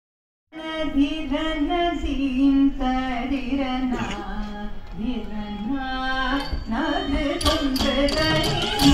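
Live Carnatic music: a gliding vocal melody over a steady drone, with percussion strokes joining about seven seconds in.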